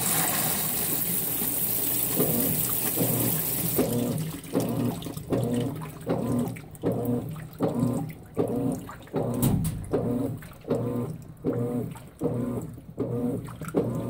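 Consul 16 kg top-load washing machine: water rushing into the tub for the first few seconds, then the agitation running, the motor humming in short strokes about one and a half times a second as the agitator churns a soaked quilt.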